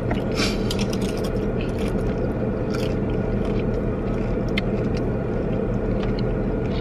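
Steady hum of a parked car running, heard from inside the cabin, with small clicks and scrapes from someone eating.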